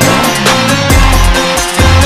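Loud electronic dance music with a heavy, repeating bass beat and sliding synth notes near the start.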